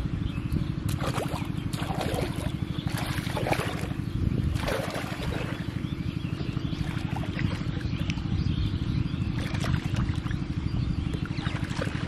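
A small engine runs steadily with a fast, even low chugging throughout, while water sloshes and splashes as a person wades through shallow water pushing a plastic tub.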